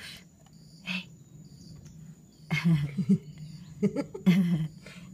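Cat hissing and growling in two short outbursts, the second about a second after the first.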